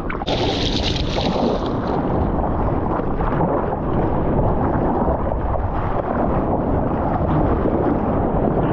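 Sea water rushing and wind buffeting the microphone, with a brighter splash near the start that lasts about a second and a half.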